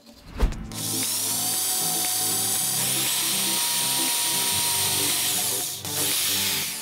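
Cordless drill with a small bit boring into a small wooden stick: a short thump about half a second in, then a steady motor whine that rises in pitch partway through, dips briefly near the end and runs on again.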